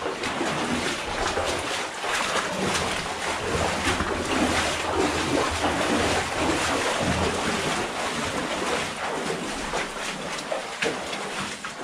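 Footsteps sloshing and splashing through shallow water in a mine tunnel, a continuous irregular splashing with no steady rhythm.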